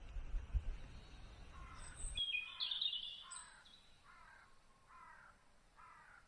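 Birds calling by a river: a run of about six repeated calls, evenly spaced and fading away, with a few higher chirps near the start. A low rumble underneath cuts off abruptly about two seconds in.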